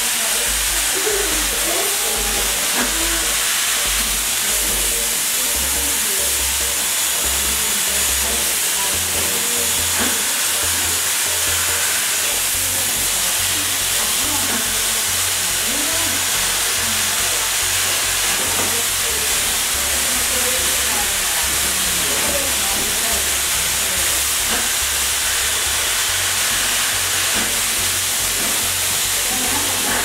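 Dyson hair dryers blowing at full power, a loud steady rush of air over wet hair that holds an even level throughout.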